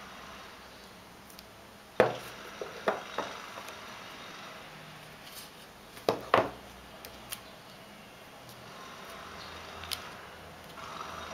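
Hands handling the accessories from an iPhone 3G box, a plastic USB power adapter and earphones in a cardboard holder: sharp clicks and knocks, the loudest about two seconds in and a close pair about six seconds in, with light handling rustle between.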